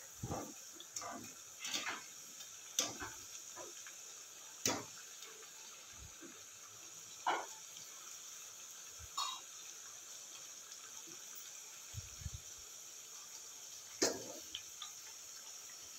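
Chakli deep-frying in hot oil in a steel wok: a steady high sizzle, with a wire spider strainer clinking and knocking against the pan now and then, the loudest knock near the end.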